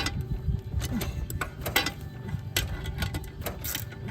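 Ratchet spanner clicking in short irregular runs as it turns a mower blade bolt.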